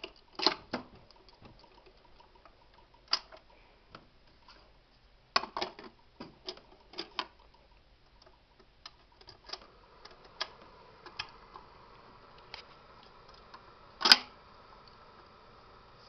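Scattered clicks and knocks of a 45 rpm record being set up on a Magnavox Micromatic record changer. A faint steady hum comes in about two-thirds of the way through, and one sharper click follows near the end.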